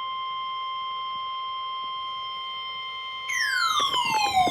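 NOAA Weather Radio warning alarm tone, a steady high-pitched tone near 1050 Hz that signals an emergency warning is about to be broadcast. About three seconds in, a second tone enters and slides steadily downward in pitch, with scattered clicks.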